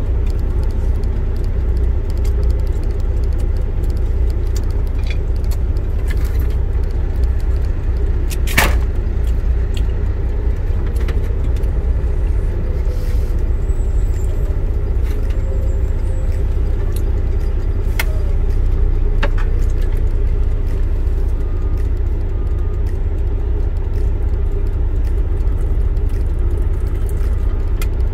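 Truck engine running with a steady low rumble, heard from inside the cab. A few light clicks sound over it, the sharpest about eight seconds in.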